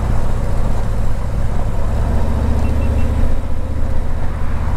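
Harley-Davidson Tri Glide's Milwaukee-Eight 114 V-twin engine running with a low, pulsing rumble that grows stronger about two seconds in.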